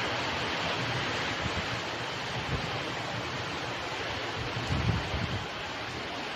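Heavy rain pouring down in a thunderstorm, a steady dense hiss, with a brief low rumble about five seconds in.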